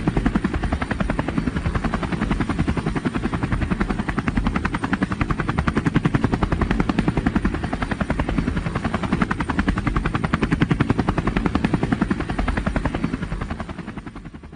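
Light helicopter in flight, its main rotor chopping in a rapid, steady beat that fades out near the end.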